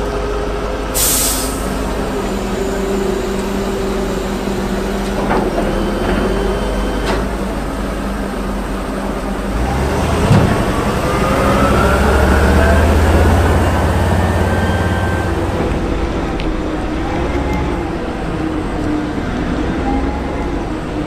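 Heavy military amphibious vehicle's engine running, with a short burst of air hiss about a second in and a few sharp clicks; about halfway through the engine gets louder and revs up, its pitch rising for a few seconds.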